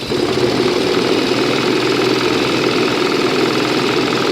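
Butterfly sewing machine running steadily at speed with a fast, even whirr, winding thread onto its bobbin.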